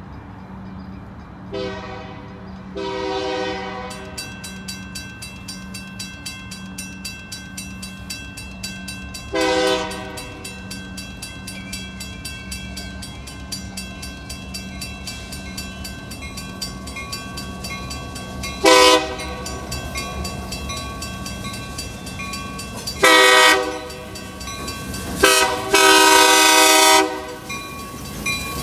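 Union Pacific diesel freight locomotive's horn sounding six blasts, short and long, for the grade crossing; the last two long blasts near the end are the loudest. From a few seconds in, the crossing bell rings steadily. At the end the train's rumble rises as the locomotive reaches the crossing.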